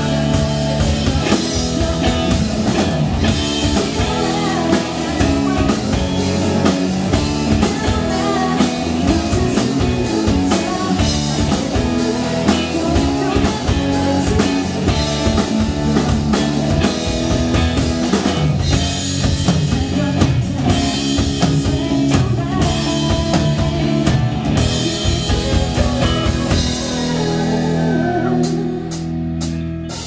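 Live rock band playing a song, with drum kit, guitar and singing.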